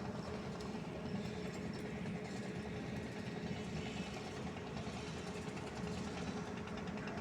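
Steady rumble of vehicle engine noise with a constant hum running through it.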